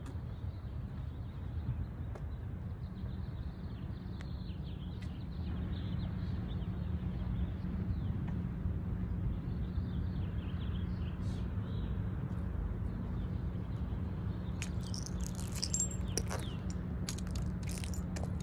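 Open-air ambience: a steady low rumble with small birds chirping over it. Near the end comes a run of sharp clicks and knocks.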